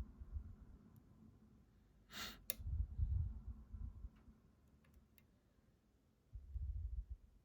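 Faint scattered clicks of a hook pick and tension tool working the pins of a challenge lock, over low handling thuds of the lock in the hand, which are the loudest part, around the middle and again near the end. A short hiss about two seconds in, followed by a sharp click.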